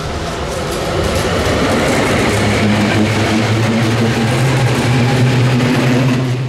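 Leoliner low-floor tram, two units coupled, passing close on ballasted track: a loud rumble of wheels on the rails, with a steady low hum that sets in about two seconds in as it goes by.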